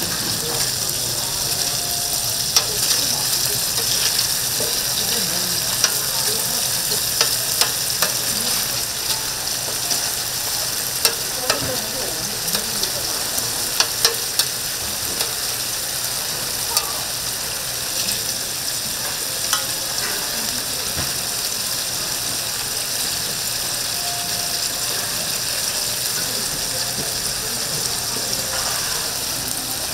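Tteokgalbi, Korean minced short-rib patties, sizzling steadily as they cook, with a scattering of sharp clicks and taps.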